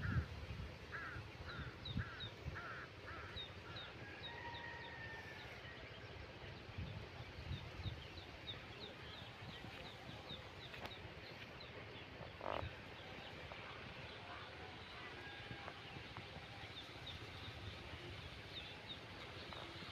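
Crows cawing in a quick repeated series for the first few seconds, with small birds chirping high and often throughout.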